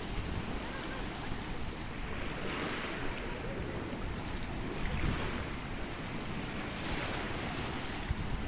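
Sea waves washing against rocks, the surf swelling every two seconds or so over a steady wash, with wind buffeting the microphone.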